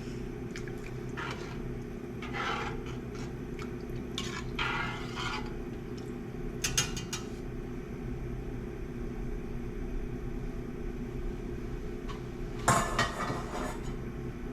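Kitchen clatter of a cooking pot and utensils: scattered clinks and scrapes of metal and glassware, a few seconds apart, over a steady low hum.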